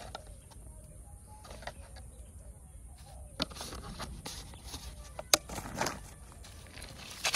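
Plastic packet and sack bag being handled, giving scattered sharp clicks and a short rustle about six seconds in, over a steady low rumble.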